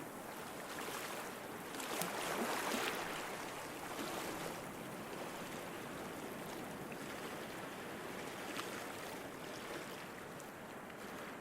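Water rushing and splashing in a steady wash, swelling louder about two seconds in.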